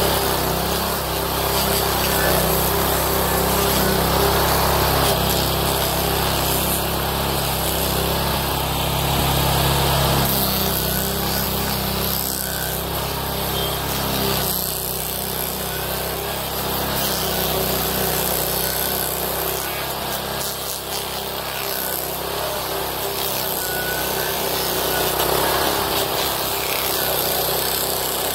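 Homemade stump grinder at work: its 13 hp Honda GX390 single-cylinder engine runs steadily under load while the Blueshark M1 cutter wheel grinds into a hardwood stump, chewing off wood chips.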